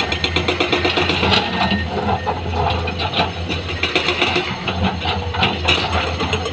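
Heavy diesel machinery running at a steady throb, with scattered knocks and clatter of stones being loaded.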